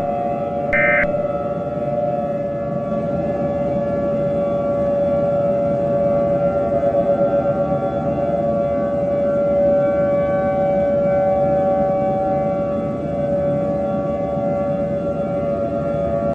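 A short digital data burst, the last of an EAS end-of-message code, then a civil defense warning siren. The siren holds a steady, several-toned pitch with a slight waver and stops abruptly at the end.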